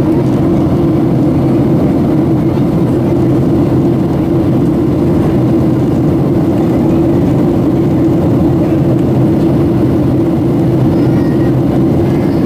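Steady cabin noise inside a Boeing 737-700 in flight: the drone of its CFM56 engines and air rushing past the fuselage, even and unchanging, heaviest in a low hum.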